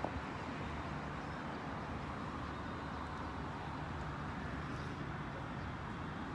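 Daihatsu Esse's small three-cylinder engine idling steadily, heard with the hood open.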